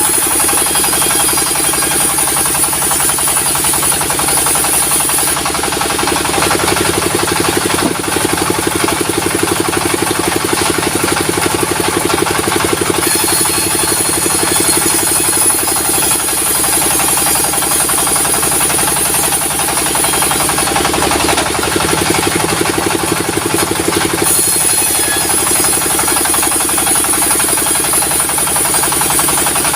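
Diesel-driven sawmill running steadily. A high hiss comes in for several seconds at a time, three times, as the saw blade cuts through a log.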